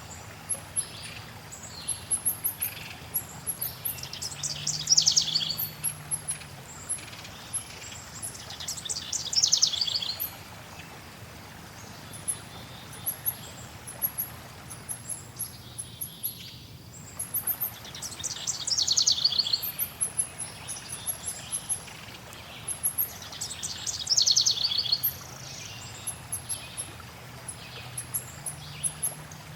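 Forest birds singing over a steady rush of flowing water: a loud trilling song phrase comes about every five seconds, with thin, very high chirps in between.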